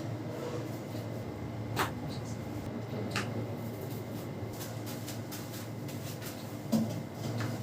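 Steady low hum with three sharp clicks, about two seconds in, about three seconds in and near the end.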